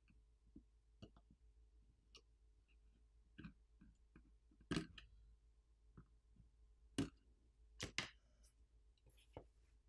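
Faint, scattered small clicks and taps, about a dozen, as the iPhone 17 Pro's battery and screen cable connectors are unsnapped from the main board.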